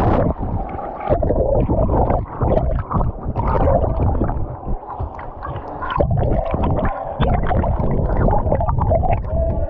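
Water gurgling, sloshing and rumbling against a GoPro carried underwater by a swimming dog, heard muffled through the submerged camera, with scattered sharp knocks and clicks.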